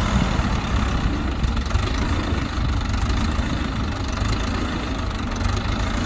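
Small four-wheel-drive farm tractor's diesel engine running steadily at low engine speed.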